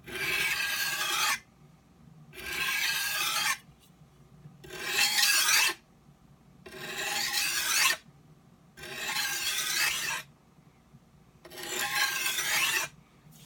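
Large steel knife blade drawn across an oiled 12-inch Norton bench stone, six rasping strokes about two seconds apart, each growing louder toward its end. The sharpener listens to this scraping sound to judge whether the blade's angle on the stone is right.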